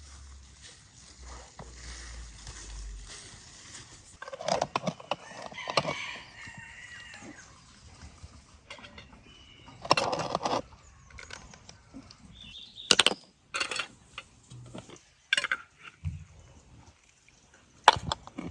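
Chickens calling, loudest about four to six seconds in and again near ten seconds. In the second half come several sharp clinks of glass jars being handled.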